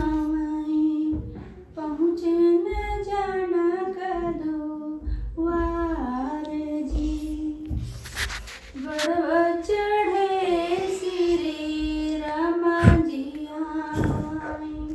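A woman singing a folk wedding song (vivah geet) alone and unaccompanied, in long held phrases with short breaths between them. A few brief bumps come in the second half.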